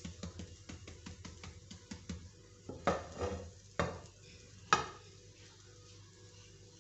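Spatula scraping and tapping against a non-stick frying pan while slices of bread toast are turned in sizzling oil. About three seconds in come three louder knocks, a second apart, and after them only a faint frying sizzle.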